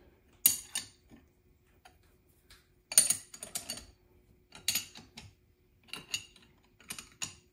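A wrench clinking on the milling vise's hold-down nuts as the vise is tightened to the mill table: a string of short, separate metallic ticks and clinks, the loudest about three seconds in, over a faint steady hum.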